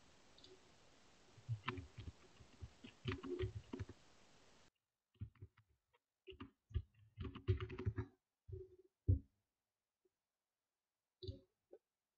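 Typing on a computer keyboard in short, irregular bursts of keystrokes, faint as heard over a voice-call microphone. A low background hiss cuts off suddenly about a third of the way through.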